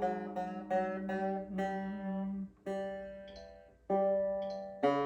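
Ortega Falcon banjo strings plucked one at a time during tuning, about ten notes, each ringing and fading, with a low note ringing on underneath. The strings are new and still stretching, so they drift flat and need retuning.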